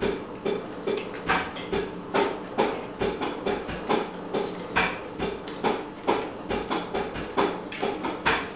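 Small plastic clicks and taps as the LCD screen's plastic holder is worked apart and its corner tabs unclipped, irregular, about two or three a second.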